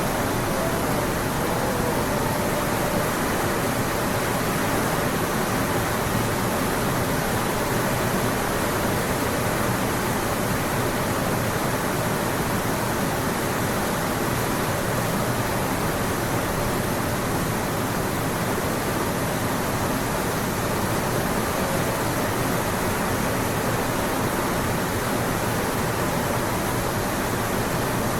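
Steady, even hiss-like noise with no change, loud and without pitch or rhythm.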